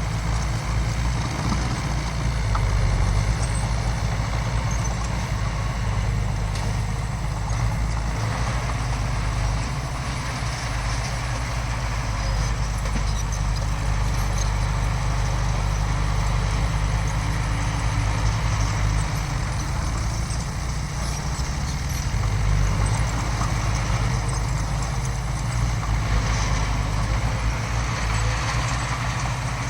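Heavy diesel engine of earthmoving machinery running steadily, a continuous low drone that rises and falls a little in loudness.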